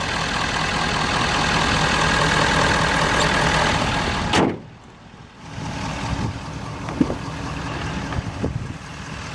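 Steady hum of an idling vehicle engine, broken by a single heavy slam of a vehicle panel about four and a half seconds in. After the slam it is much quieter, with a couple of light clicks.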